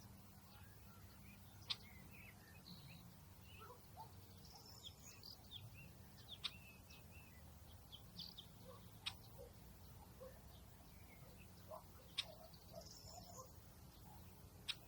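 Faint outdoor birdsong: scattered short chirps and twitters, with a sharp high chirp about every two to three seconds, over a low steady background rumble.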